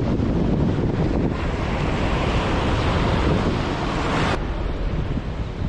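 Wind buffeting the microphone over surf washing on a rocky shore. A brighter hiss swells about a second in and cuts off suddenly about three seconds later.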